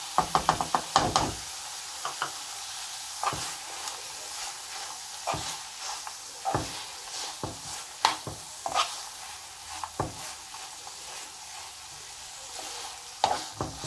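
Beetroot halwa sizzling in a pan while a spatula stirs and scrapes through it, with irregular scrape strokes about once a second. A quick run of clicks in the first second or so comes as chopped almonds and pistachios are tipped in.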